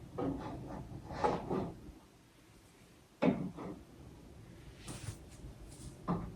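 Knocks and clacks of skincare bottles and jars being handled and set down on a vanity, with the sharpest knock about three seconds in and brief rustling near five seconds.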